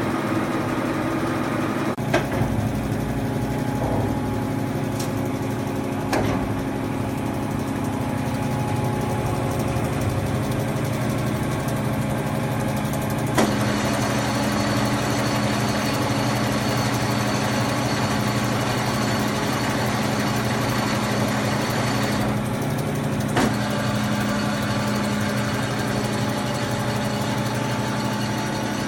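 Blanchard 18-36 rotary surface grinder from 1962 running under power, a steady electric machine hum. A few sharp clicks break in, about two, six, thirteen and twenty-three seconds in. With the click about thirteen seconds in, the running sound changes and grows brighter and hissier, and it stays that way to near the end.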